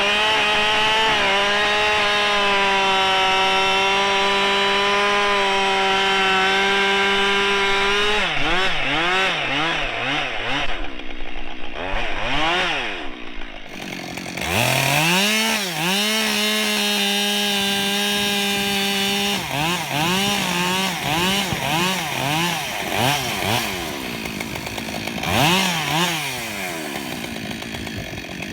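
Husqvarna 572 XP two-stroke chainsaw bucking ash: the engine is held at steady full throttle through a cut for about eight seconds, then revved up and down in short blips, held steady through a second cut of about five seconds, then revved in quick blips again, dropping lower near the end.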